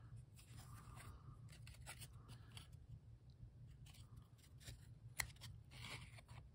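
Faint scraping and rustling of stiff cardboard trading cards, 1996-97 Upper Deck basketball cards, being slid and peeled apart one at a time off a stack, with one sharper snap about five seconds in. The cards are sticking together.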